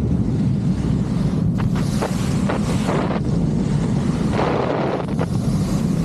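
Wind buffeting the action camera's microphone with a heavy rumble, over the hiss and scrape of a snowboard carving across snow, the hiss swelling and fading from turn to turn.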